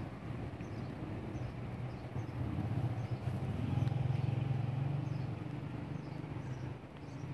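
A vehicle engine running with a steady low hum that swells a few seconds in and then eases off.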